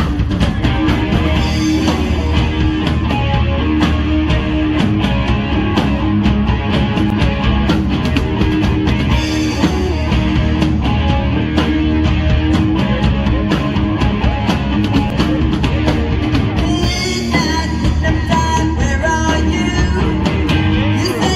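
Live rock band playing amplified music, with drums keeping a steady beat under bass and guitar.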